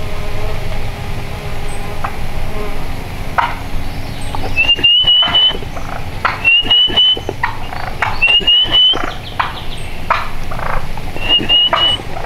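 Bird calling: from about four and a half seconds in, a short, quickly rising run of high notes repeats every second or two, with scattered short calls and a steady outdoor hiss around it.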